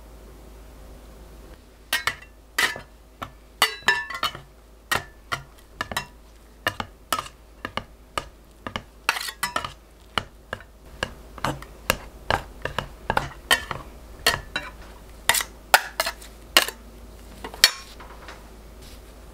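Stainless steel bench scraper chopping through crumbly scone dough and clinking against a glass mixing bowl. The sharp clicks come irregularly, about two a second, starting about two seconds in and stopping shortly before the end.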